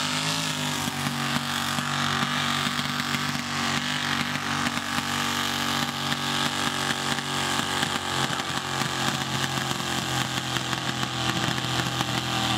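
Mud-bog pickup truck's engine running at steady revs, a continuous drone that barely changes in pitch.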